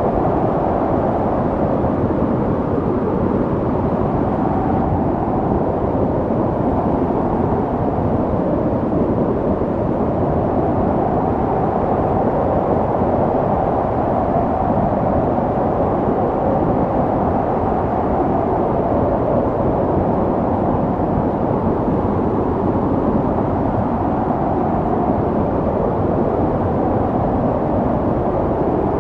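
Snowstorm wind blowing steadily: a dense, low rushing noise with no gusts or breaks standing out.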